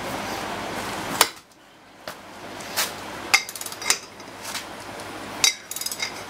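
A breaker bar and large axle-nut socket being handled on a car's front hub: about half a dozen sharp metal clinks and clanks, spaced irregularly. They follow a steady hiss that stops abruptly with a sharp knock about a second in.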